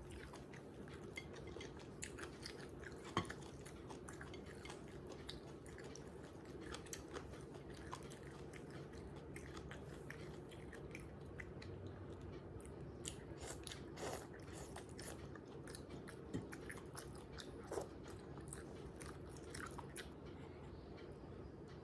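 Close-miked eating sounds of goat meat on the bone in curry broth, eaten by hand: chewing and biting with many short, wet clicks, the sharpest about three seconds in, over a steady low hum.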